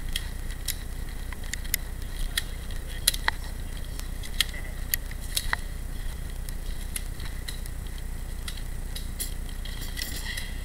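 Irregular small clicks and light metallic rattles of hands working on a jammed airsoft gun, over a steady low rumble.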